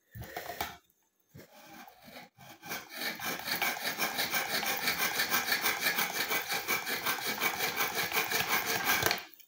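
Scissor blade drawn rapidly back and forth through a slot of a BAUM ZINDECH ZRT-400 manual knife-and-scissors sharpener, a fast, even, rhythmic metal-on-abrasive rasping. A few scattered scrapes come first; the quick steady strokes start about three seconds in and stop just before the end.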